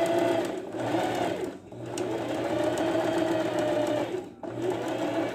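Electric domestic sewing machine stitching fabric. It runs in three spells with brief stops between them, its pitch rising and falling as the speed changes.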